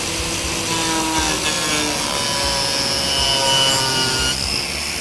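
Angle grinder carving into plywood: the motor's steady whine slides in pitch as the disc bites into the wood, over the hiss of the cut.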